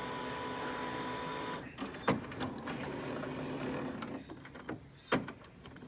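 Epson 7720 inkjet printer running its power-on routine: the motors whir with a steady whine for about the first second and a half, then the mechanism carries on more quietly, with sharp clicks about two seconds and five seconds in as the print head carriage moves.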